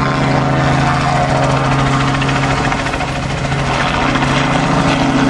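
Robinson R44 helicopter flying low overhead: the steady drone of its piston engine and two-bladed main rotor, dipping slightly in the middle before steadying again.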